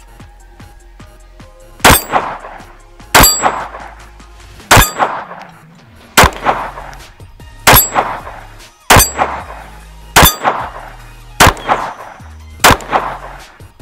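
Walther P22 .22 LR pistol fired nine times in slow, steady succession, about a shot every second and a half, each sharp crack followed by the ringing clang of a steel target being hit.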